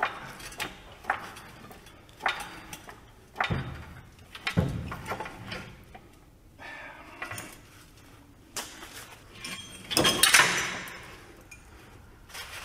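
Metal clanks and knocks as a heavy truck leaf spring pack, hanging from a chain, is shifted into position by hand. There are several sharp knocks in the first few seconds, a heavier thud about four and a half seconds in, and a louder scraping rattle about ten seconds in.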